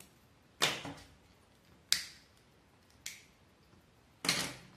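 Four sharp clicks and clacks about a second apart, from small craft tools being handled and set down on a tabletop: spring thread snips cutting the string and a plastic lighter.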